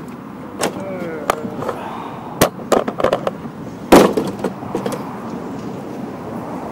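A string of sharp knocks and clanks, the loudest about four seconds in, over a steady background noise.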